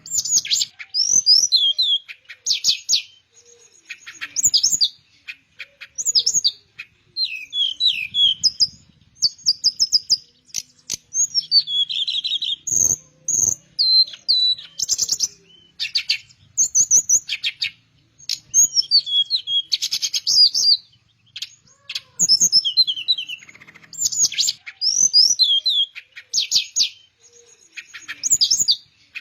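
Teledekan (a sikatan blue flycatcher) singing loud, quick phrases of high warbling and falling whistled notes, repeated over and over with short pauses. There is a brief knock about halfway through.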